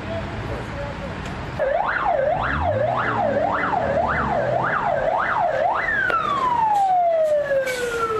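Fire engine siren sounding in quick rising-and-falling sweeps, about two a second, then winding down in one long falling tone from about six seconds in. For the first second and a half there is only low background noise before the siren starts.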